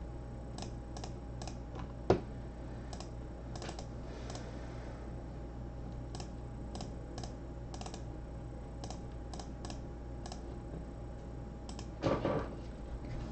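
Typing on a computer keyboard: irregular sharp key clicks over a steady low hum, with one louder knock about two seconds in and a brief louder clatter near the end.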